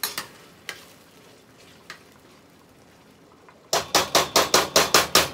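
A spoon stirring in a cooking pot, with a few scattered clinks. Near the end comes a quick run of about nine loud knocks of the utensil against the pot.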